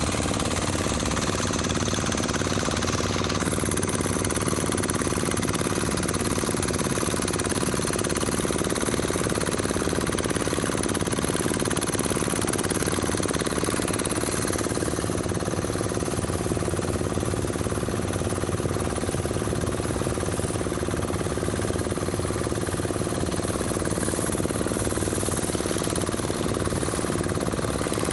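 Small fishing boat's engine running steadily at cruising speed, a fast, even mechanical chugging.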